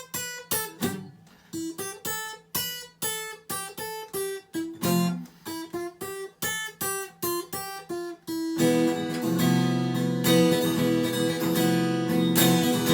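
Acoustic guitar playing an instrumental passage with no singing: short, separately picked notes, about two to three a second, then louder sustained strummed chords from about eight seconds in.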